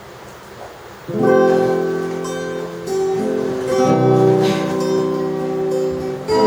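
Acoustic guitar strumming chords, starting about a second in after faint hiss, with the chord changing several times.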